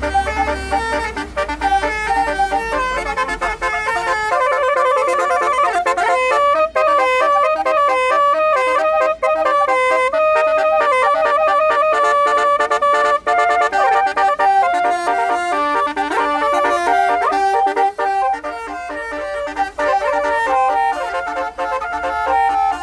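Multi-trumpet musical air horn playing a tune: several horn tones sounding together, stepping from note to note. A low rumble sits under it for the first few seconds and again near the end.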